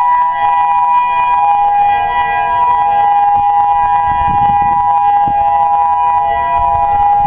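Federal Signal EOWS-612 electronic outdoor warning siren sounding a loud, steady two-pitch tone during a tornado siren test, with no rise or fall in pitch.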